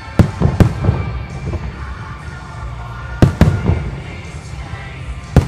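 Aerial firework shells exploding in a professional display: sharp echoing bangs about a fifth of a second in and again at about half a second, a close pair a little past three seconds, and another just before the end, over steady background music.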